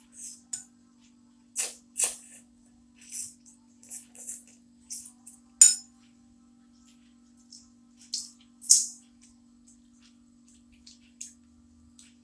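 A child eating instant noodle soup: irregular slurps and mouth noises, with a metal utensil clinking against the bowl, one sharp clink about five and a half seconds in. A steady low hum runs underneath.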